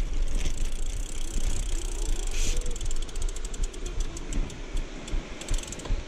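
Rear freewheel of a Carraro 062 Race road bike ticking rapidly as the rider stops pedalling and coasts, starting about halfway through and slowing near the end, over a low rumble of tyres and wind.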